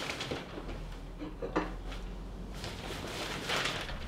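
Handling noises: paper rustling and light clicks and knocks as a newspaper is put down and a plate with a sandwich is picked up. The sharpest knock comes about a second and a half in, and a longer rustle near the end.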